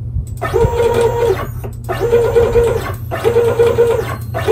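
Stepper motors of a homemade 3D-printed CNC router whining through a series of short jog moves, each about a second long. The pitch ramps up as the motors accelerate, holds, then ramps down as they stop, with brief pauses between moves. A steady low hum runs underneath.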